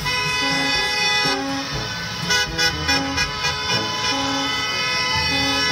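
Toy school bus's electronic horn sound effect: a sustained, horn-like tone with a short lower note repeating beneath it and a few clicks around the middle.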